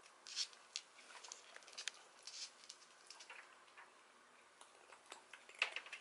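Faint sniffing from pets nosing at a palmful of dry kibble, with scattered light clicks and ticks.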